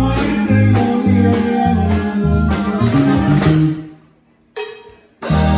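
Live norteño band playing: electric bass stepping through notes under accordion and guitar. The music breaks off about four seconds in, a short single note sounds, and a held chord starts again just before the end.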